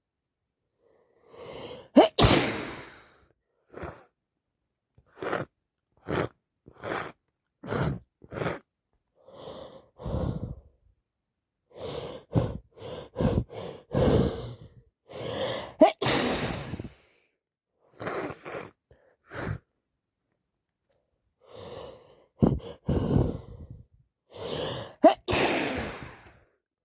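A woman with a head cold sneezing several wet sneezes, each after a gasping buildup breath, with short sniffs in between.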